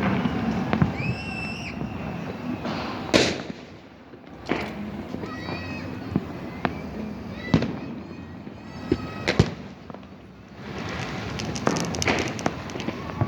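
New Year fireworks going off in many sharp bangs and cracks. Several whistling fireworks rise in pitch, about a second in, around five seconds and around eight seconds, and there is a patch of dense crackling near the end.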